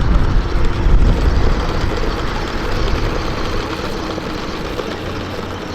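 Toy remote-control car's small electric motor whirring as it drives over bumpy dirt, with a heavy low rumble that is loudest in the first second and then slowly eases off.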